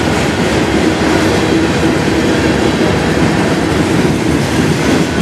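Freight cars of a passing manifest train (covered hoppers, a tank car and a boxcar) rolling by on the near track: a steady, loud rumble of steel wheels on rail.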